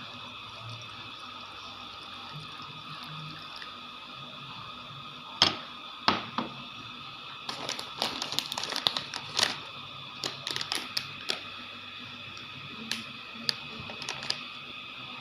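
A series of sharp taps and clicks, two loud single ones about five and six seconds in, then a quick irregular run of them for several seconds and a few more near the end, over a steady high-pitched hum.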